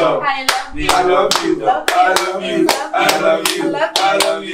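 Hands clapping in a steady run, about three claps a second, over people laughing and talking excitedly.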